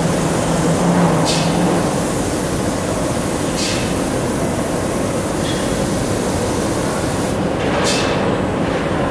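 Steady loud noise of a paint spray booth's extraction and factory machinery, with short hisses from the robot's spray gun about every two to four seconds as it paints chair backs. A low hum fades out about two seconds in.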